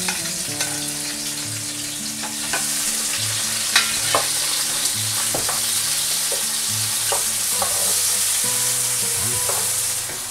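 Sliced onions and sweet peppers sizzling in hot oil in an aluminium pot, stirred with a wooden spoon that scrapes and taps against the pot. The sizzle grows louder a couple of seconds in as the vegetables start to fry.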